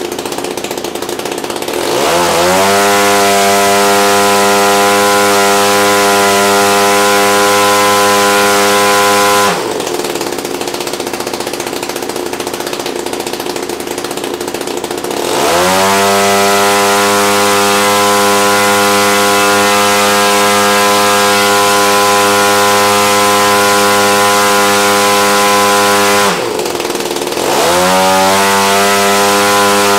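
Husqvarna 268K 67cc two-stroke single-cylinder engine, converted from a cut-off saw, turning a 22x13 propeller on a test stand. It idles, then is run up to high revs three times: each time the pitch climbs quickly to a steady high drone, about two seconds in, about fifteen seconds in and near the end. The first two run-ups hold for several seconds each and then drop back to idle.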